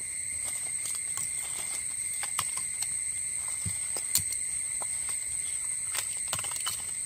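Steady insect song, a continuous high drone at two pitches, with scattered light clicks and knocks of lumps of charcoal being set down by hand into a brick stove, the sharpest about four seconds in.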